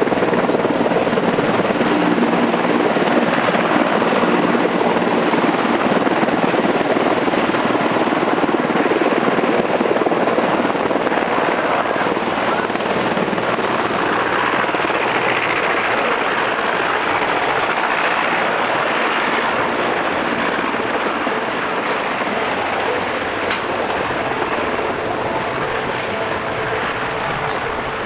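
Sikorsky S-64 Skycrane heavy-lift helicopter in flight: its twin turboshaft engines give a steady high-pitched whine over the rushing noise of the big main rotor, the sound gradually fading.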